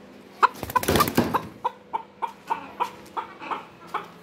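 Chocolate Silkie chicken calling: a loud, harsh outburst about half a second in, then a run of short, rhythmic clucks about three a second that weaken toward the end.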